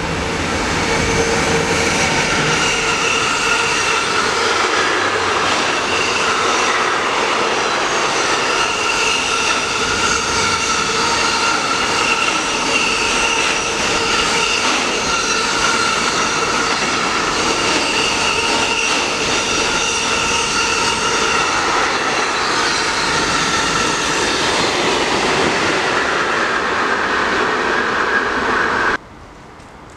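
An electric locomotive and a long container freight train passing close by: a steady loud rush of wheels on rails with high ringing tones from the wheels running through it. The sound cuts off abruptly near the end.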